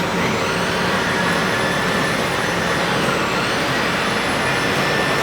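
Lacquer being sprayed onto a wooden sign: a steady, even hiss with no breaks.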